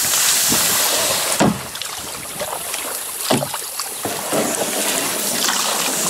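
Kayak paddle strokes in river water, with water moving around the hull and two louder strokes about one and a half and three and a quarter seconds in.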